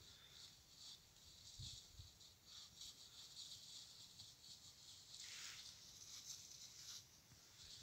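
Near silence with faint, irregular rustling and crackling of dry leaves and brush.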